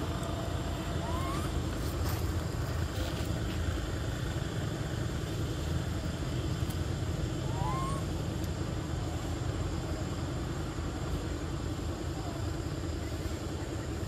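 Steady low rumble of road traffic, with a couple of short rising chirps from a bird above it.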